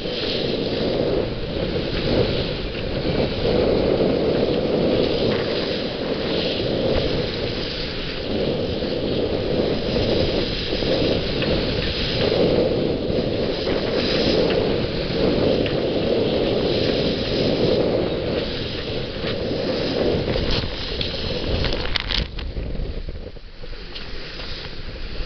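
Wind buffeting the microphone on a sailboat under way, a steady rumbling roar mixed with water rushing along the hull; it drops in level about three-quarters of the way through.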